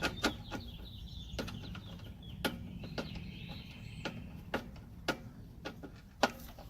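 Irregular sharp clicks and taps of a screwdriver and wire being worked on a terminal block's screws, over a low steady hum.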